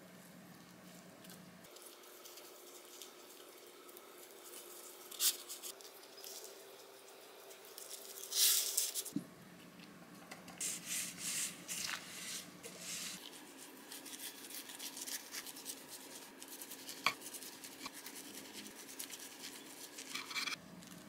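Kimbap being made on a wooden cutting board: a plastic rice paddle pressing and spreading rice over a sheet of dried seaweed, gloved hands rubbing sesame oil onto the rolls, and near the end a knife slicing through the rolls. The sounds are soft rustles, taps and scrapes, with a louder rustle about halfway through and a run of short strokes just after.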